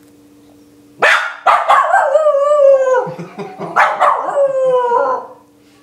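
Small dog barking and howling: sharp barks about a second in run into a long howl that falls in pitch, then a second bark breaks into another falling howl near the end.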